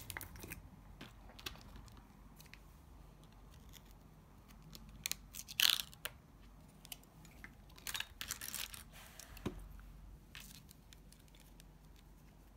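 A plastic jar of acrylic nail powder being opened and handled: quiet scattered clicks, rustles and crinkles, with louder bursts about five and a half seconds in and again around eight to nine seconds in.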